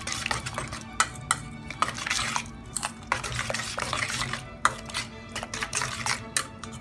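A metal spoon stirring a thick, wet mash of grated vegetables and fruit in a stainless steel bowl: repeated swishing strokes with sharp clinks where the spoon strikes the side of the bowl.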